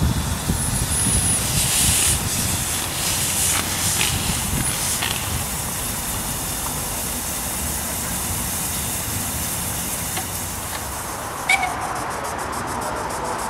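Small 0-4-2T narrow-gauge steam locomotive moving off slowly, with steam hissing in bursts over the first few seconds and a low rumble, then a quieter steady hiss. A single sharp click comes near the end.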